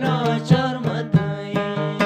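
Hazaragi folk music played on the dambura, the two-string Afghan long-necked lute, strummed in a steady rhythm with sharp accented strokes about twice a second.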